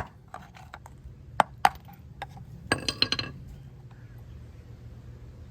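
Hammer work on a mower wheel's bearings: two sharp metal knocks about a second and a half in, then a short burst of ringing metallic clinks around three seconds in. After that only a faint low hum remains.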